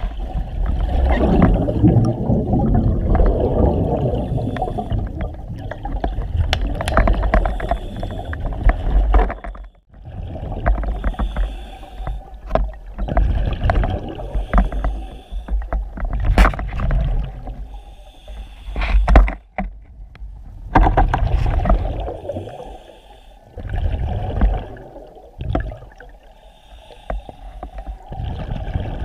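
A scuba diver breathing underwater: bursts of regulator hiss and rumbling exhaled bubbles that come and go every few seconds, over water rushing past the camera in the river current.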